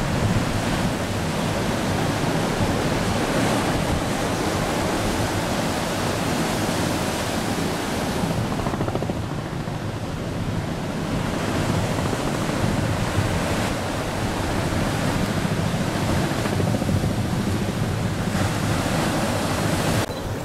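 Steady noise of large ocean surf breaking, with wind on the microphone. The higher hiss thins for a few seconds in the middle.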